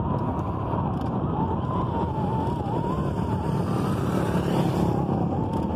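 Steady rushing of wind on a handheld phone's microphone and road noise while riding a bicycle, with a thin whine wavering up and down in pitch throughout.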